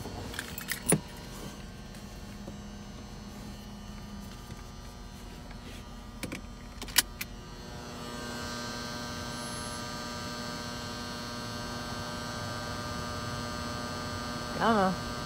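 Steady electrical hum of a car-wash pay terminal, made of several fixed tones, with a few sharp clicks; the hum grows louder about eight seconds in, when the car's side window is open to the machine. A short wavering tone sounds near the end.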